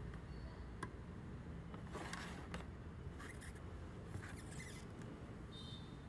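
An Ethernet cable and its plastic RJ45 plug handled at a router's rear ports: a few light clicks and short scrapes over a low steady hum.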